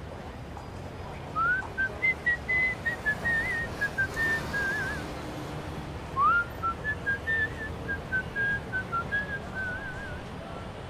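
A person whistling a tune in two phrases. Each phrase starts with an upward slide, then steps down through short notes and ends in a small warble.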